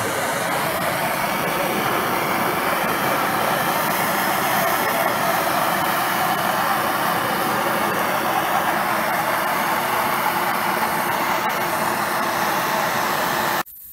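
MAP gas hand torch burning with a steady hiss as its flame heats the seized steel cap of a clutch master cylinder. It stops abruptly near the end.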